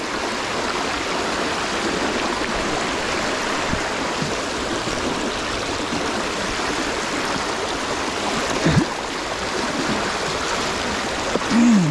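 Steady rush of flowing river water, an even hiss of current over stones.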